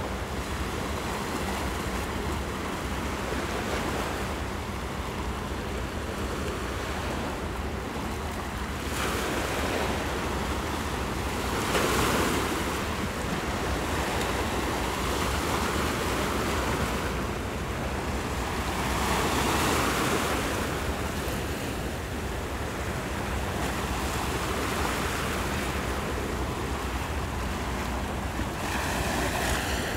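Small sea waves breaking and washing over shoreline boulders, a continuous wash that surges louder several times as waves come in.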